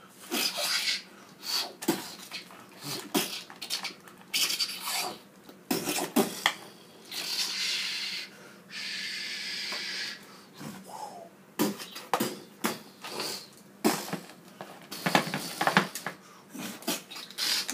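A man making mouth sound effects for a play fight between action figures: many short puffs, clicks and spits, with two longer hissing blasts about halfway through.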